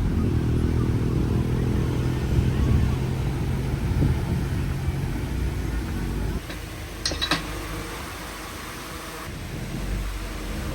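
Heavy diesel engine of an earthmoving machine running with a steady pitched note. About six seconds in the engine sound drops off sharply and a couple of short knocks are heard. The engine rumble builds again near the end.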